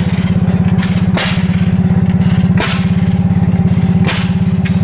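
Engines running: a fast, steady engine beat with a sharp bang about every second and a half.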